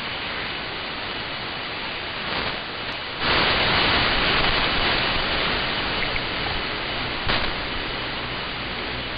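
Shortwave static: a steady hiss from a software-defined radio receiver demodulating AM on the 40-meter amateur band, in a pause between an operator's CQ calls. The hiss jumps louder a little over three seconds in, then slowly settles.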